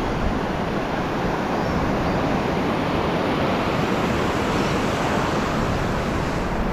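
Ocean surf breaking and washing up the beach: a steady rush of water.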